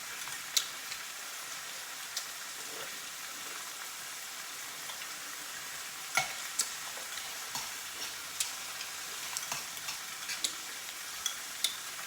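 Meat sizzling steadily in a frying skillet, with a few sharp clicks and taps scattered through it.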